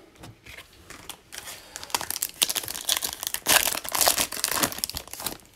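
Foil wrapper of a Panini Prizm football card pack crinkling and tearing as it is pulled open by hand. The rustling is faint at first, then grows dense and loud from about two seconds in and stops just before the end.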